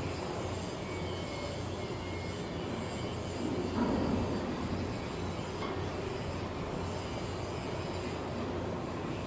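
Steady low mechanical hum of ship-repair-yard machinery, with a brief louder rumble about four seconds in.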